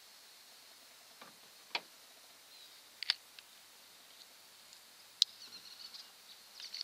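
A handful of sharp clicks and taps as fishing tackle is handled on a car's roof, the loudest about three seconds and five seconds in. Under them runs a faint, steady, high insect hum.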